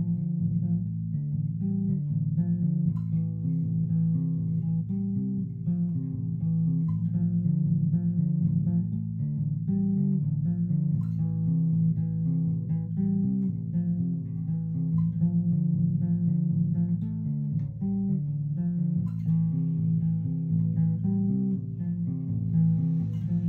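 Electric bass played fingerstyle through a 1970s Peavey "The Bass" amplifier head: a continuous run of plucked bass notes changing quickly. The amp is freshly recapped with new output transistors, and the oscillation it used to squeal with is cured.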